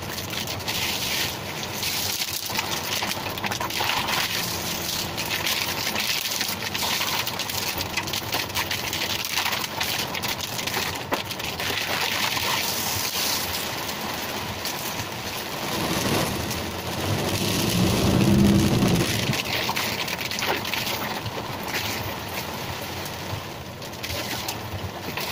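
Heavy rain pelting a car's roof and windshield, heard from inside the cabin as a dense crackling hiss. About two-thirds of the way through, a louder low rumble swells and fades.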